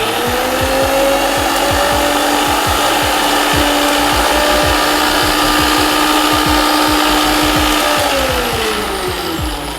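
Electric mixer grinder (mixie) grinding a thick coconut chutney of grated coconut, roasted dried chillies, shallots and ginger. The motor runs at a steady whine, then about eight seconds in it is switched off and winds down, its pitch falling as it slows.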